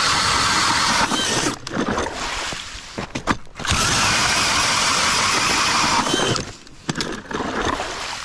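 DeWalt 20V cordless drill spinning an ice auger through lake ice in two long runs. The first ends about a second in and the second starts about three and a half seconds in. A few knocks come near the end.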